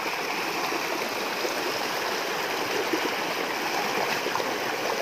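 Shallow rocky stream rushing steadily, water pouring over the rocks.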